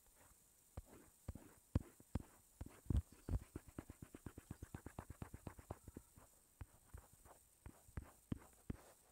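Faint quick taps and knocks on a tablet touchscreen during back-and-forth brush strokes. They come irregularly at first, then in an even run of about six taps a second in the middle, then thin out again.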